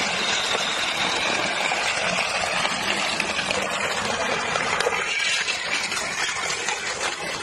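Glass beer bottles crunching and breaking under the steel roller of a road roller: a steady crackle of many small breaks with no pause.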